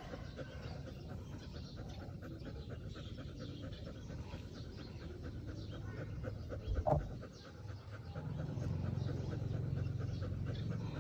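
A dog panting steadily in quick regular breaths, with a brief thump about seven seconds in.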